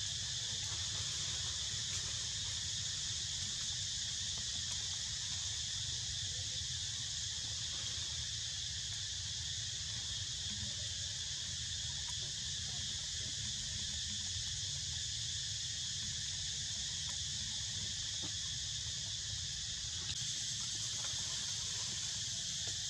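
Steady chorus of insects, an unbroken high-pitched buzzing and trilling that holds the same level throughout, over a low steady rumble.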